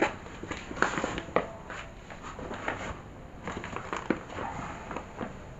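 Folding cot being unfolded by hand: its fabric rustling and its metal frame knocking and clicking irregularly, with a few sharper clicks among the rustle.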